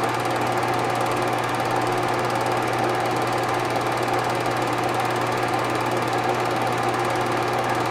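Film projector running: a steady mechanical whir with a fast, even rattle that does not change.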